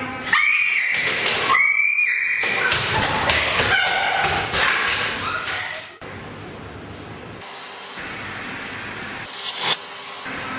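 Young women screaming in fright: long, high-pitched screams over the first few seconds, mixed with thuds and scuffling. After that the screaming stops and a quieter, steady rushing noise remains.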